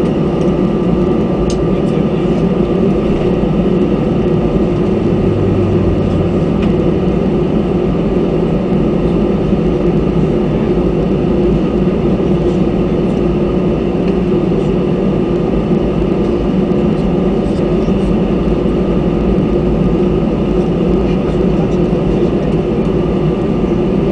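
Cabin noise of an Airbus A319 taxiing: its jet engines running at low taxi thrust, a steady rushing hum with a thin steady whine, heard from a window seat over the wing.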